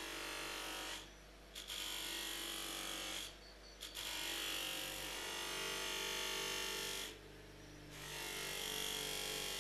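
Bench buffer's motor running steadily while the steel hammer head is pressed against the spinning buffing wheel to mirror-polish it. The hissing whir of the wheel on the metal drops away briefly three times, about a second in, past three seconds and near seven seconds, as the piece is lifted off.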